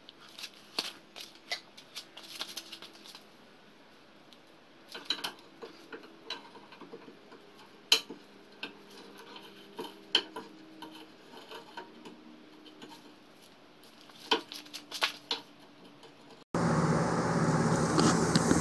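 Scattered light metallic clinks and knocks of metal tools and parts being handled, over a faint steady hum. Near the end it cuts abruptly to a louder steady rushing noise.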